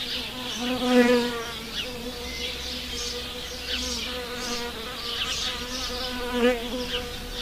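A bee buzzing in flight: a steady hum that swells louder about a second in and again near the end.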